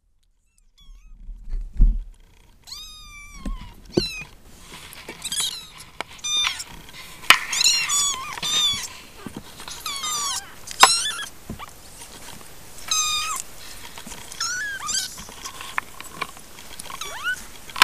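Three-week-old Siamese kittens mewing again and again in short, high, thin calls that rise and fall. The calls start about three seconds in, after a low thump, and sharp knocks from the cats moving in the box come in between them.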